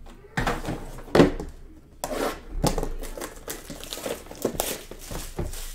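Plastic wrapping and a cardboard card box being handled and crinkled: a run of irregular sharp rustles and taps.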